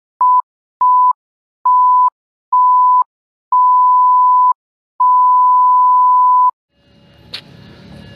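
A series of six electronic beeps at one steady pitch, each longer than the last, the final one held for about a second and a half. The beeps stop, and outdoor ambience takes over with a sharp click.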